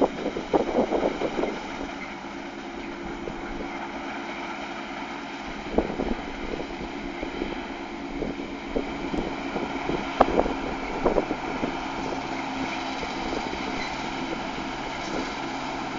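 New Holland TX68 combine running steadily during wheat harvest, a constant machine hum with irregular short knocks and rattles, a cluster near the start and a few more later, and some wind on the microphone.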